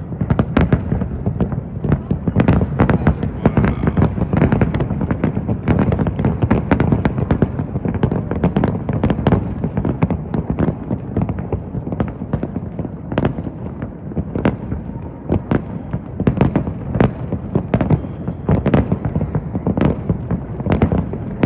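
Fireworks display at full pace: aerial shells bursting in rapid, overlapping bangs, several a second, over a continuous low rumble.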